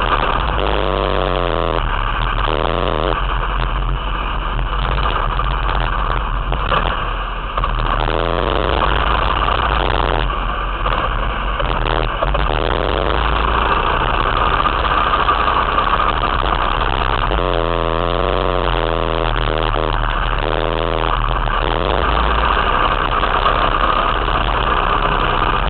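Ice go-kart engine running close up, revving up and down, its pitch rising and falling with the throttle, most plainly near the start and again about two-thirds of the way in.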